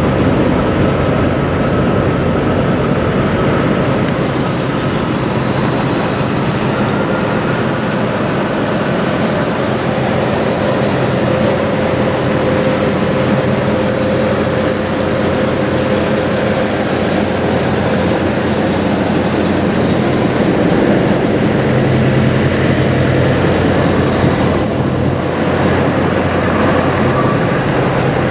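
Diesel engines of parked semi trucks idling: a steady, loud mechanical drone with a low hum.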